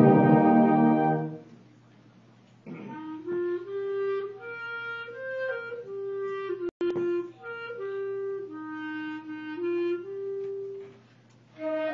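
A school band's full chord dies away about a second in. After a short pause a single wind instrument plays a slow solo melody of held notes stepping up and down, broken by a momentary audio dropout near the middle. The full band comes back in near the end.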